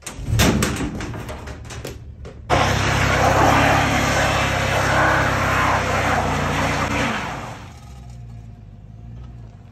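Van engine revving hard while a wheel spins in loose dirt and leaves, coming in suddenly about two and a half seconds in and easing back to a lower steady run near the end. A few knocks and clicks come before it.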